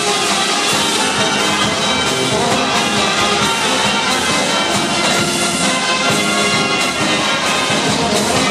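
Brass band playing marinera music at a steady loudness, with trumpets and trombones carrying the tune.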